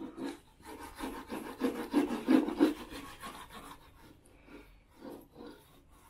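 Wallpaper seam roller rolled back and forth along a wallpaper joint, pressing the seam flat with repeated rubbing strokes. The strokes are loudest in the first half and fade toward the end.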